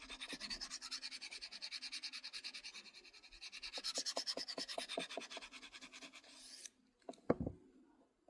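A knife blade is drawn quickly back and forth on a Victorinox pocket sharpener. It makes a rapid, even rasp of about eight short strokes a second, which stops abruptly after some six seconds. A single knock follows.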